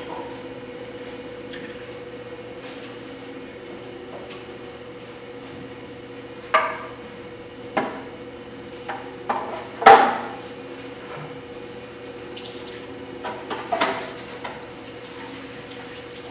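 Electric potter's wheel humming steadily as wet clay is shaped on it, with short clatters and wet splashes of tools, clay and water in the workshop, about six of them scattered through, the loudest a little past the middle.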